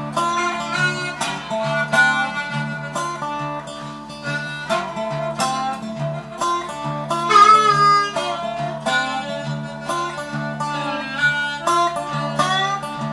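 Blues harmonica playing a lead over a lap slide resonator guitar, which keeps up a steady repeating low figure. The harmonica bends one long note about seven seconds in.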